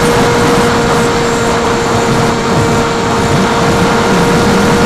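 Electric motor and propeller of the Caipirinha FPV aircraft in flight, a steady whine over loud wind rush, heard from its onboard camera.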